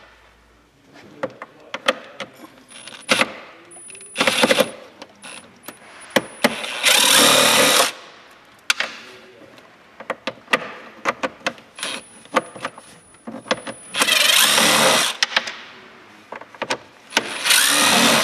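Power screwdriver running in four short bursts, about a second each, backing out the screws that hold an Audi A3 glove box. Small clicks and rattles of the tool and screws come between the bursts.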